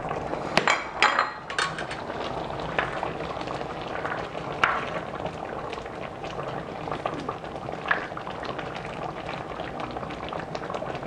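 Tomato-sauce stew simmering in a stainless steel pan: a steady bubbling, with a few sharp clicks scattered through, most of them about a second in.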